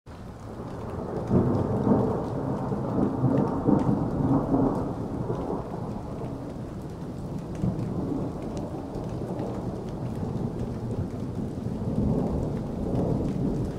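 Thunder rumbling over steady rain, a thunderstorm sound effect fading in from silence. The rumble swells about a second in and again near the end.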